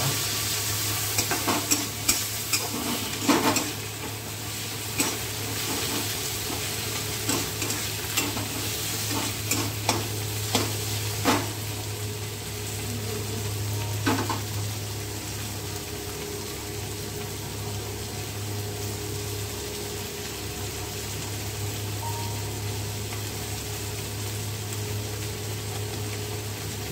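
Onions and tomatoes sizzling in hot oil in an iron kadai. A steel spatula scrapes and clicks against the pan during roughly the first fourteen seconds, then the clicks stop and only the steady sizzling remains.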